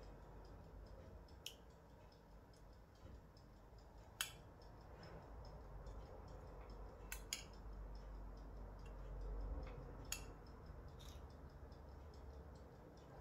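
Faint, sparse clinks of a metal spoon against dishware, about six short sharp taps spread out, while tomato pulp is spooned onto cauliflower slices. A low, steady room hum runs underneath.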